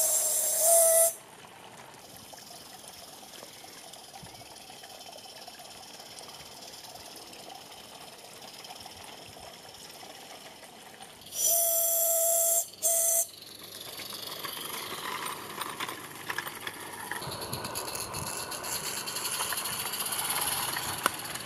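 Steam whistle of a live-steam 16mm-scale garden railway locomotive: one blast ends about a second in, then a longer blast and a short toot come about halfway through. Between the blasts the running engine hisses steadily, louder in the second half.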